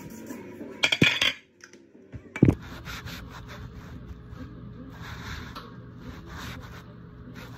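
Two loud knocks about one and two and a half seconds in. Then a utensil stirs and scrapes chopped red cabbage and kielbasa around a metal skillet in repeated strokes, over a steady low hum.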